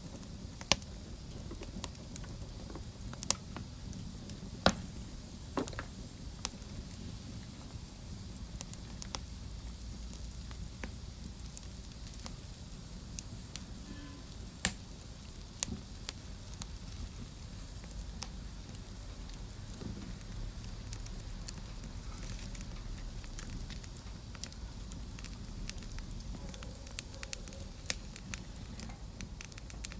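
Wood fire crackling in a fireplace: a steady low rumble and hiss of burning with irregular sharp pops and snaps scattered throughout, a few much louder than the rest.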